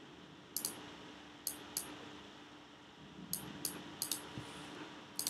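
Scattered sharp clicks from working a computer's mouse and keyboard, about eight in a few seconds, some in quick pairs, over a faint steady hum.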